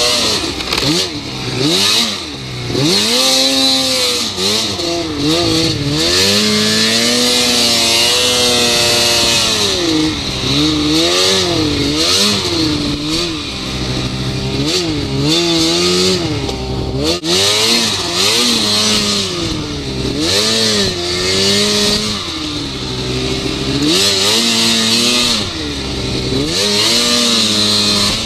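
Snowmobile engine revving up and dropping back over and over as the throttle is opened and eased on the ride, over a steady hiss.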